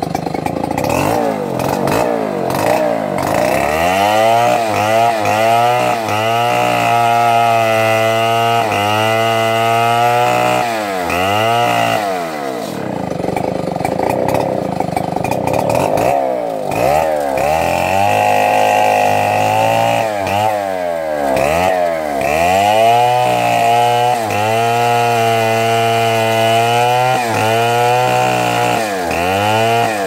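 Stihl chainsaw running and revving up and down over and over as it cuts through brush and small stems. Its engine note sags and climbs back about once a second, and it settles for a few seconds near the middle before revving again.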